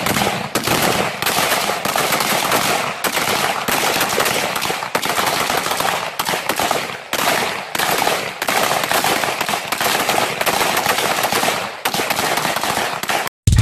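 A line of rifles firing together in rapid, overlapping shots, a near-continuous volley with no break between reports. It cuts off suddenly shortly before the end.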